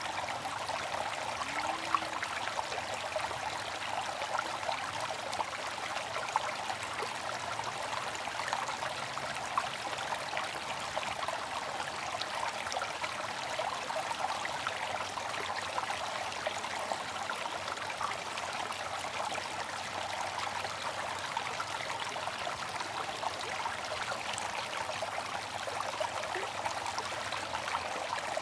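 Bamboo water fountain: water trickling steadily, with small splashes and drips throughout.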